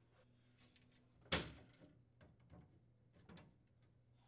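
One sharp knock about a second in, then a few faint taps and clicks: plastic refrigerator shelving parts being handled and set into place.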